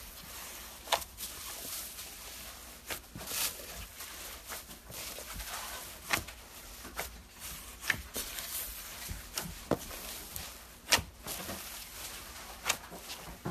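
Foam-bead slime (floam) being squeezed and stretched by hand: irregular sharp pops and crackles from the beads, several a second, over a soft squishing.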